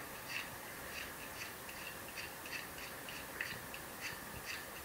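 Utility-knife blade scraping the graphite lead of a soft pencil to a point, in light, quick strokes of about three a second.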